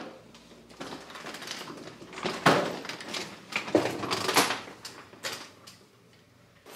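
A door being handled: a string of clicks and knocks, the loudest about two and a half seconds in and again around four seconds in.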